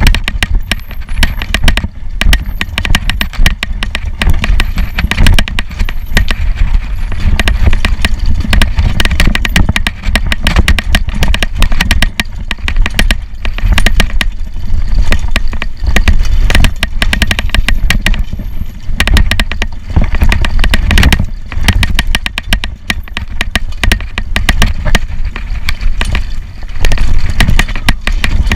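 Mountain bike rattling and clattering over a rough, rocky dirt descent, with dense knocks from the frame and chain and heavy wind rumble on the camera microphone.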